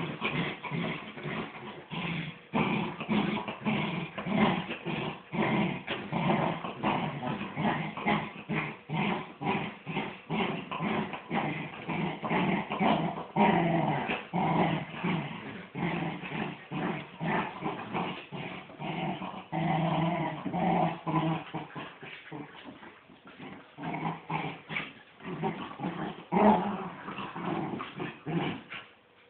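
Miniature wirehaired dachshunds growling almost without a break while they tug against each other on a rope toy: a playful tug-of-war growl. The growling eases off for a couple of seconds about three-quarters of the way through.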